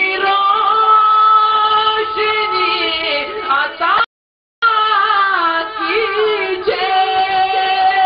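A singing voice holding long, slowly wavering notes of an Urdu devotional song. The sound drops out to silence for about half a second roughly four seconds in, then the singing carries on.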